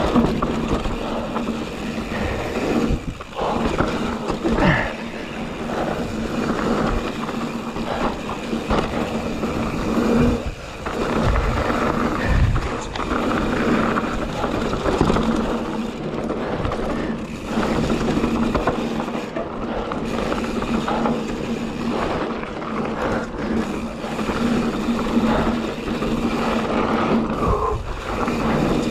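Full-suspension mountain bike descending dry, hard-packed, dusty dirt singletrack: continuous tyre noise over the ground, with rattles and low knocks from the bike over bumps, a few of them heavier near the middle. A steady low hum runs underneath.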